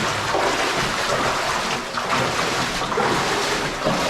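Feet wading and splashing through shallow running water in a low, flooded mine tunnel, a steady rush of sloshing water.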